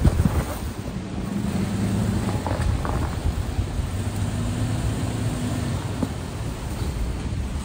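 Toyota 4x4's engine running steadily at low revs while crawling over trail rocks, with a few short knocks from the truck.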